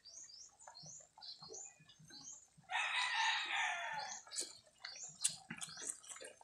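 A rooster crows once, for about a second and a half, in the middle. Small birds chirp faintly and repeatedly in the background.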